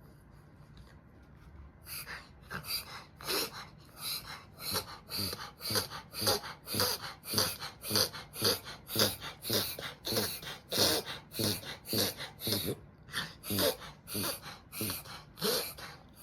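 Mame-shiba dog reverse sneezing in an intense bout: a fast run of loud snorting inhalations, about two to three a second, starting about two seconds in, with a short break about three seconds before the end.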